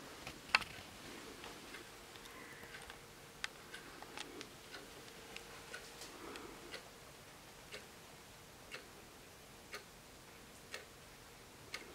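Junghans wall clock ticking quietly, one sharp tick about every second as its second hand steps, with a few extra irregular clicks in the first few seconds.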